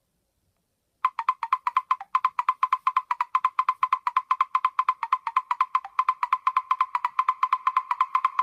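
A Nokia 515 ringtone playing on a Nokia 7100 Supernova phone. About a second in, it starts with a fast, even run of short wood-block-like notes at one high pitch, and a fuller layer gradually builds underneath them.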